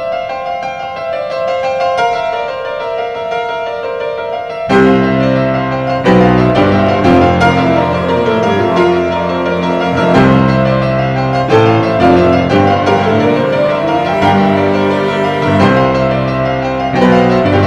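Background music on a piano-like keyboard instrument. A higher melody plays alone at first; about five seconds in, lower notes join and the music grows louder.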